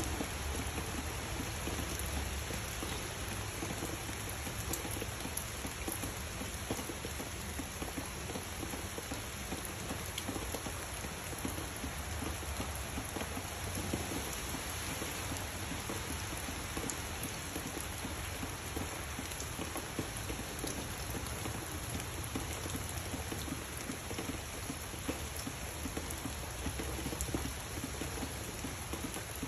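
Steady rain falling on tree leaves, an even hiss. A low rumble of distant thunder swells near the start and again around the middle.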